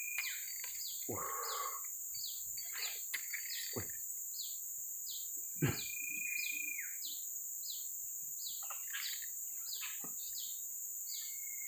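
Birds chirping in a quick repeating series, with a long held whistled note near the start and another about six seconds in, over a steady high insect drone. A sharp knock about five and a half seconds in.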